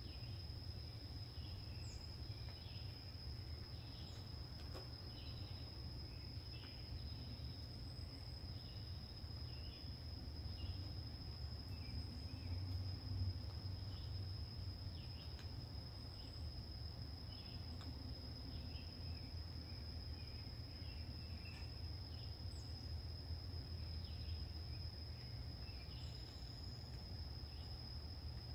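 Insects trilling steadily at one high pitch, with faint scattered bird chirps and a low rumble underneath.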